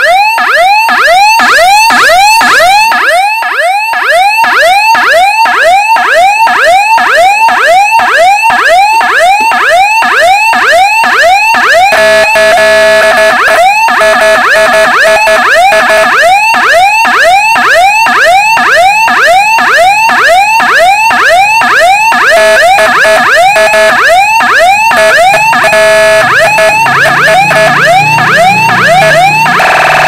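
12-tone electronic siren module with an LA4440 amplifier sounding through a horn speaker, repeating fast rising sweeps about three a second; about twelve seconds in a steady tone sounds along with the sweeps, and near the end it switches to a buzzing, noisy tone. The module works again now that its failed 7808 regulator, which had cut the supply to the amplifier IC, has been replaced with a 7805.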